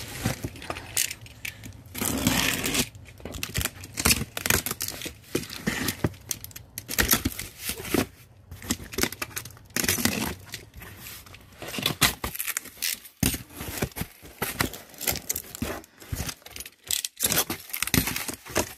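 Box cutter slitting packing tape and plastic stretch wrap on a cardboard box, with irregular tearing and crinkling noises and cardboard flaps being pulled open near the end.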